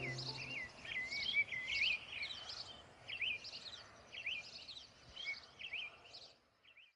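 Birdsong: quick chirps and twittering whistles in short repeated phrases, fading out near the end. The tail of a held music chord dies away in the first half second.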